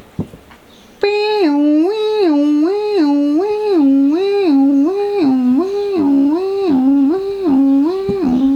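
Toy police car's electronic two-tone siren, a few clicks and then, about a second in, a steady high-low wail that switches between two notes several times a second.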